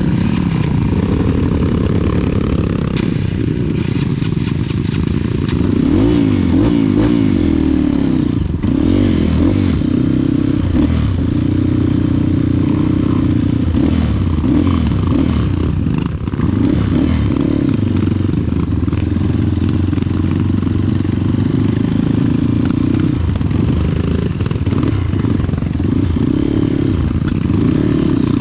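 Trail motorcycle engine running under load on a dirt track, its pitch repeatedly rising and falling as the throttle is worked, with occasional knocks from the bike.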